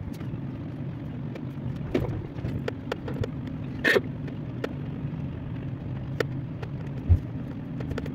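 Steady low engine hum heard from inside a car cabin while a tractor pulls the vehicle, with scattered sharp ticks throughout and a low thud about seven seconds in.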